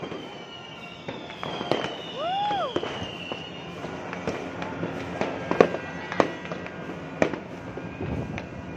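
Fireworks going off in the distance: irregular sharp bangs and crackles, the loudest about five and a half seconds in, with a long high whistle slowly falling in pitch over the first few seconds.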